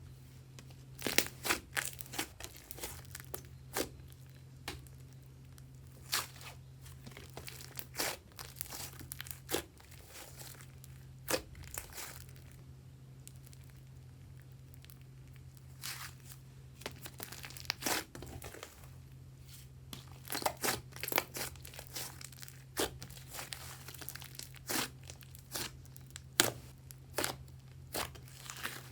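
Butter slime being worked and kneaded, giving irregular sticky clicks and crackles that come in clusters with short pauses between.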